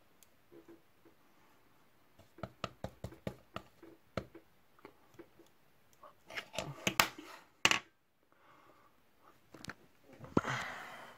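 Handling noise: a run of light taps and clicks, then a cluster of louder clicks, and about ten seconds in a thump followed by a rustle as the phone filming is picked up and moved.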